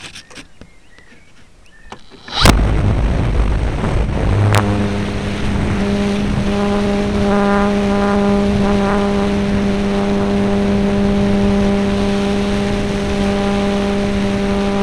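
An Alpha 1500 RC model plane's motor and propeller, heard from a camera on board. A loud rush starts about two and a half seconds in, and a couple of seconds later the motor settles into a steady, even drone with air rushing past as the plane climbs away.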